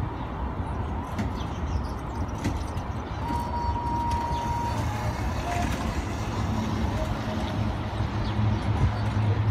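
Children's ride-on mini train approaching along its track, its motor a low steady hum that grows louder through the second half, over a steady hiss of outdoor vehicle noise.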